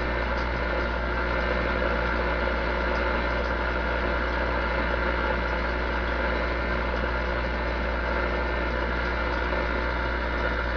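Vintage DAK Mark IX CB radio's receiver putting out steady channel static with no one transmitting: an even hiss over a low, steady hum.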